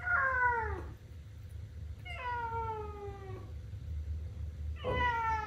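British shorthair kitten meowing three times, each meow falling in pitch and the middle one longest: crying to be let in through the bathroom door.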